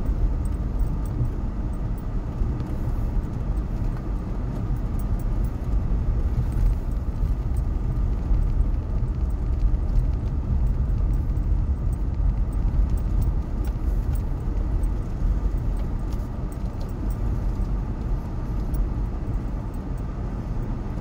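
Jeep Renegade Trailhawk heard from inside the cabin, driving slowly on a gravel track: a steady low engine and road rumble with scattered small ticks and rattles.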